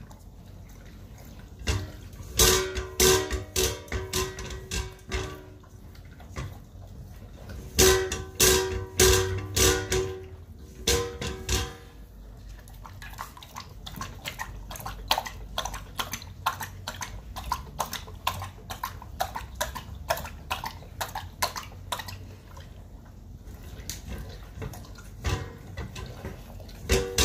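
Chocolate Labrador lapping water from a stainless steel bowl: a fast run of wet laps, and in two loud stretches about two and eight seconds in, the metal bowl rings with each lap.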